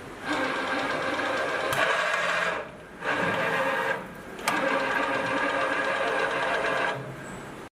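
Electric CNC tapping machine spindle running a deep-hole tapping cycle: a steady motor whir in three runs separated by short dips as the tap feeds and backs out, with sharp clicks about two and four and a half seconds in.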